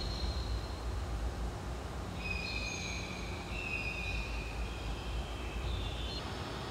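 The installation's sound playing: a steady low rumble, joined about two seconds in by several thin, high, held tones that stop about six seconds in.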